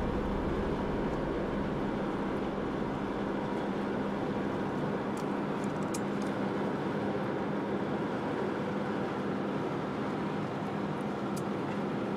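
Steady road and engine noise of a car driving, heard from inside the cabin, with a low steady hum and a few faint ticks.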